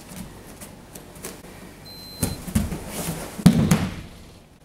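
Judo tai otoshi throw on tatami mats: a few softer thumps of feet, then the thrown partner landing in a breakfall with a loud thud on the mat about three and a half seconds in.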